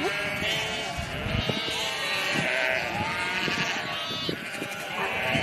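Sheep bleating, several calls overlapping one another.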